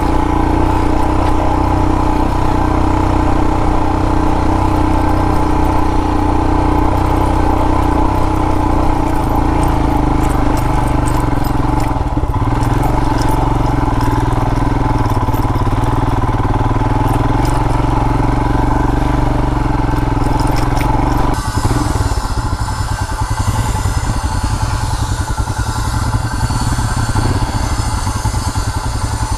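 Royal Enfield Himalayan motorcycle engine running steadily while riding off-road. About three-quarters of the way through, the sound changes abruptly to a choppier, pulsing engine note with hiss above it.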